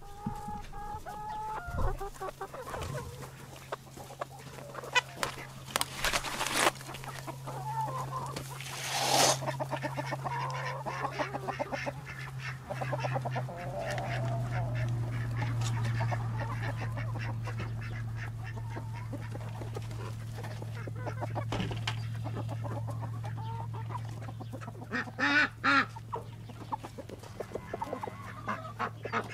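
A flock of chickens clucking as they peck at feed, with an occasional louder call, over a steady low hum. A couple of brief louder noises come around six and nine seconds in.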